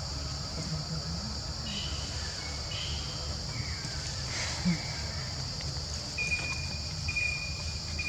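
Insects droning steadily over a low outdoor rumble, with a few short, high chirps coming and going.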